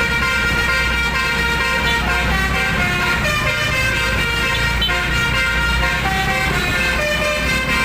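Basuri multi-tone 'telolet' horn on a garbage dump truck playing a melody, its notes changing in steps, over a steady low rumble.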